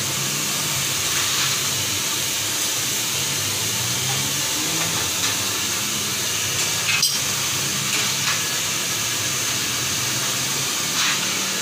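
A steady, even hiss with faint low murmuring beneath it, and one sharp click about seven seconds in.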